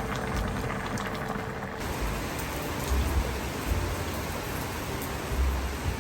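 Steady rain falling, an even hiss of drops, with a few brief low rumbles in the middle and near the end.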